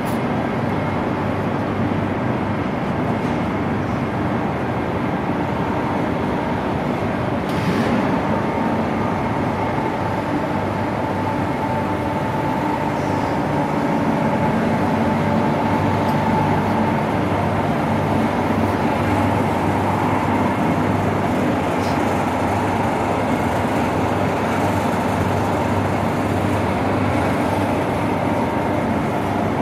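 Steady mechanical hum of heavy machinery running, with a low drone and a whine near 1 kHz over a rumble. There is a single brief knock about seven seconds in.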